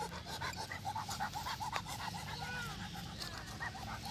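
Rottweiler panting rapidly at its handler's feet, about five quick breaths a second.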